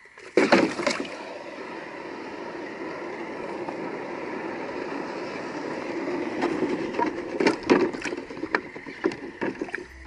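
Hot, freshly cast aluminium ingot quenched in a bucket of water, sizzling steadily for about nine seconds after a sharp clack as it goes in, with a few knocks near the end.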